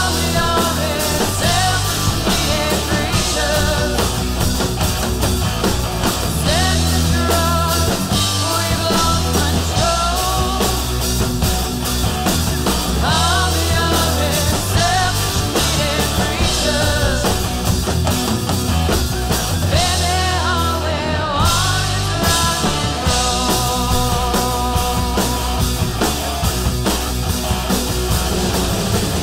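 Rock band playing a hard rock song: a woman singing lead over distorted electric guitars, bass and drums, loud and continuous.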